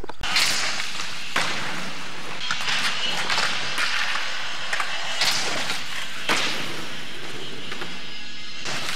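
Skateboard wheels rolling on skatepark ramps, with several irregular sharp knocks of the board hitting the surface.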